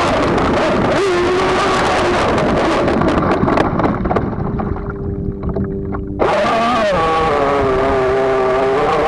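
WLtoys WL913 RC speedboat's brushless electric motor whining as it runs over choppy water, its pitch wavering with the throttle over the rush and splash of water against the hull. About halfway through, the sound goes muffled for a couple of seconds as water washes over the onboard camera, then the whine cuts back in suddenly.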